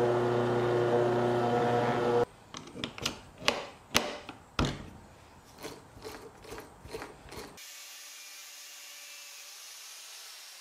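Salvaged drain-cleaner electric motor running steadily, belt-driving a kitchen mixer's gearbox and armature on a test stand, as a quick test of the setup; it stops abruptly about two seconds in. Then come a series of sharp clicks and knocks as the metal mixer gearbox is handled, followed by a faint hiss.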